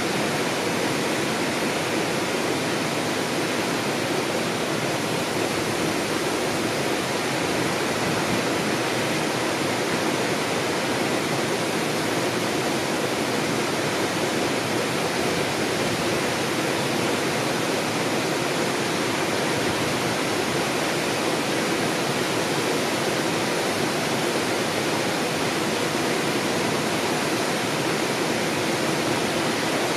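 Steady rushing water, like a stream or waterfall, an even hiss that holds unchanged throughout.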